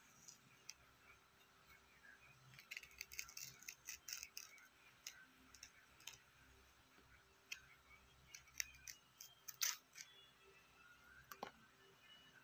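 Small knife cutting and scraping along fresh green bean pods: a scatter of faint, sharp clicks and scrapes, busiest a couple of seconds in and again later, with the sharpest click near the ten-second mark.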